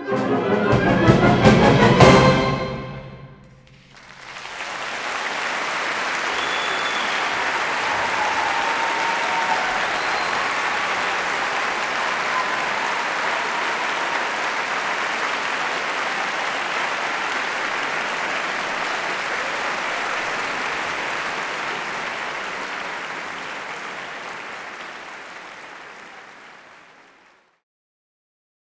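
A wind orchestra with brass and timpani builds to a loud final chord that cuts off about two seconds in and rings on briefly. After a short hush, the audience applauds steadily, fading out near the end.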